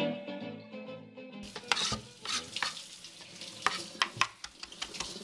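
Acoustic guitar music fading out, then a knife chopping fresh parsley on a white plastic cutting board: irregular sharp taps, a few a second.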